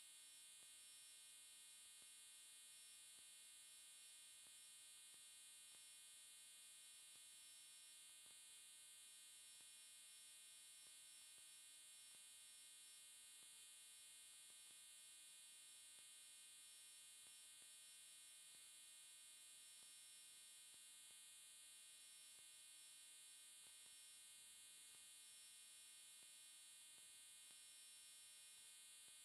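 Near silence, apart from a faint steady electronic hum with a high whine above it; no sound of the sand crumbling.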